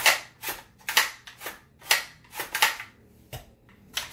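Action of a Hi-Point 995TS carbine in an MBS-95 bullpup stock being cycled by its charging handle: a run of sharp metallic clacks, about two a second, as the bolt is pulled back and snaps forward.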